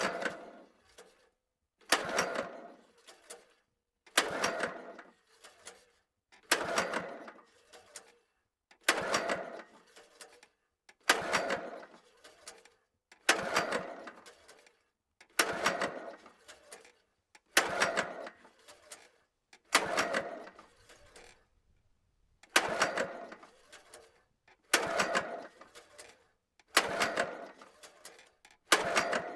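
Lawnmower engine pulled over again and again on its recoil starter, about one pull every two seconds, each turning the engine over briefly and dying away without it catching: the engine won't start.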